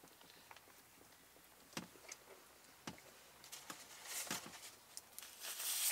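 Faint mouth sounds of a man chewing a mouthful of bacon cheeseburger: a few soft clicks and smacks at first, growing into denser wet chewing and breathing in the last two seconds.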